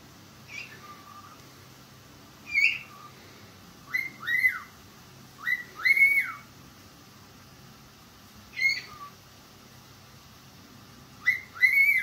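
Pet cockatiel whistling: short clear whistled notes, several in quick pairs that rise and fall in pitch, with pauses of a second or two between them.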